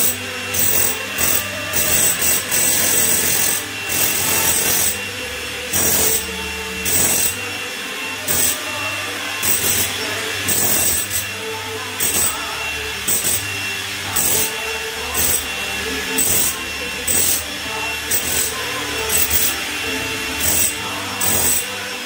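Corded electric demolition hammer chiseling into a concrete floor, run in short bursts of hammering about once a second, some bursts longer than others.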